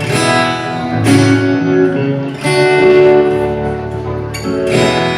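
Acoustic guitar strummed through a chord progression, with a new chord struck every second or two and left to ring between strums.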